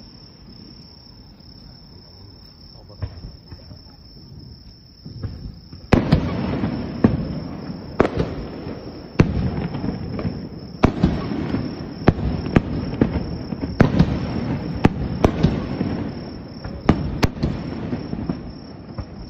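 Fireworks display: aerial shells bursting. A few faint bangs at first, then from about six seconds in a rapid run of loud bangs, roughly one every second or less, with rumbling and crackle between them. A steady high insect chirring runs underneath.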